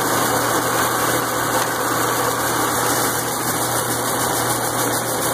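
SVF aronia berry destemmer running steadily, its motor and mechanism giving a continuous mechanical hum.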